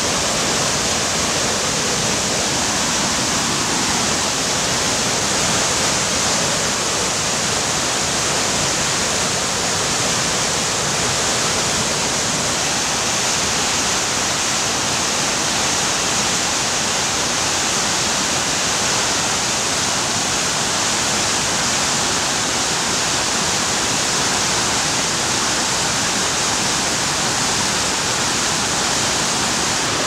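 The Jordan River in high, muddy flow, rushing over rocks in whitewater rapids: a steady, unbroken rush of water.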